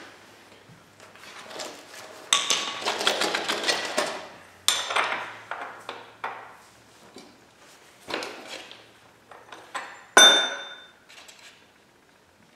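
Metal hand tools clinking and clattering as they are handled around a dirt bike's rear axle. There is a dense burst of clatter about two seconds in, scattered clinks after it, and one sharp ringing metallic clink near the end that is the loudest sound.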